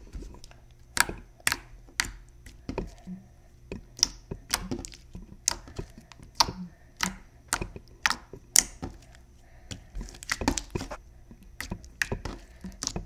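Glossy, stretchy slime being poked and squished close to the microphone, giving irregular sticky clicks and pops, about one or two a second, with a short lull near the middle.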